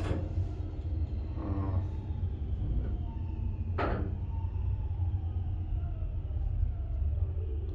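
1982 KONE in-ground hydraulic elevator car descending: a steady low rumble of the car in travel with a faint whine that slowly falls in pitch, and a single sharp click about four seconds in. The descent is really slow.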